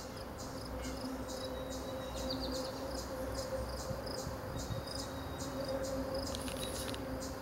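Insects chirping in a steady rhythm, a few short high chirps a second, over a faint steady hum.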